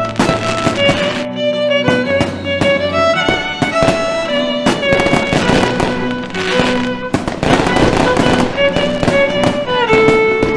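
Music with a violin melody, mixed with many irregular sharp fireworks bangs and pops.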